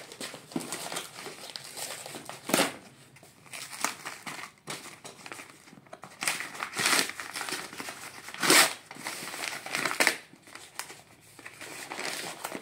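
Packing tape and paper wrapping being peeled and torn off a cardboard parcel: crinkling rustle broken by several short rips, the loudest about two and a half, eight and a half and ten seconds in.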